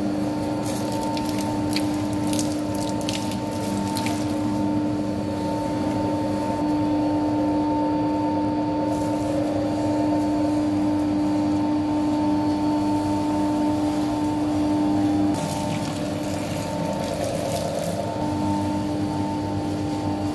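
Commercial stainless-steel dough mixer running, its hook kneading flour and water into dough around the bowl's central post, with a steady motor hum. Scattered clicks and knocks sound from about one to four seconds in and again around fifteen seconds in, where the hum briefly changes.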